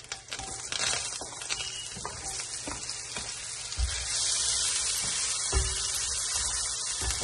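Chopped red onion and garlic sizzling as they go into hot oil and butter in a stainless steel pan and are stirred with a spatula, with a few light taps and scrapes against the pan. The sizzle grows louder about four seconds in. This is the onion-and-garlic base being sautéed for a risotto.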